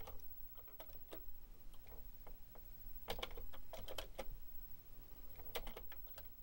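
Keys pressed on a Commodore 64 keyboard: scattered single clicks, then quick runs of keystrokes about three seconds in and again near the end.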